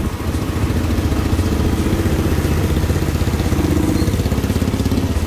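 Motorcycle engine running as the bike is ridden along, a fast, even low pulsing.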